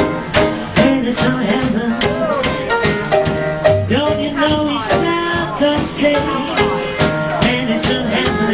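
Background music with a steady beat and a melodic line.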